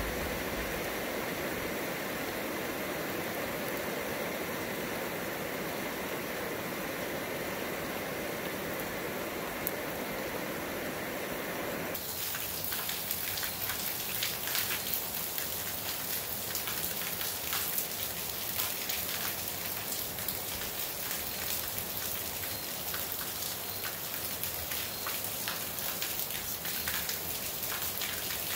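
A steady rushing noise that changes abruptly, about twelve seconds in, to heavy rain falling on trees and the ground, a dense patter of drops over a constant hiss.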